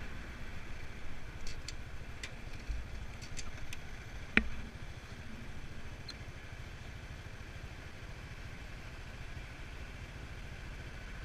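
Motor scooter's small engine idling while stopped, a steady low rumble that eases off after the first few seconds. A single sharp click about four seconds in.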